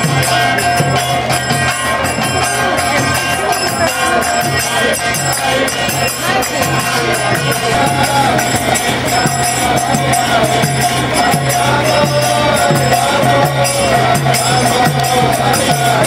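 Devotional kirtan music: group singing over a steady drone, with jingling hand cymbals and a regular drum beat.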